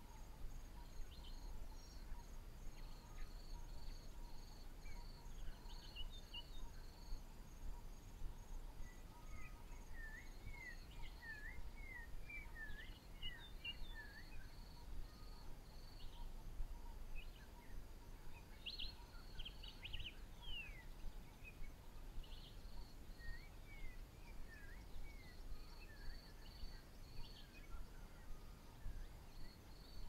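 Faint African bush ambience: insects chirp in steady, evenly pulsed trains that pause and resume. Birds call over them in short slurred whistles, a busy run of notes in the middle and a few sharp falling notes a little later.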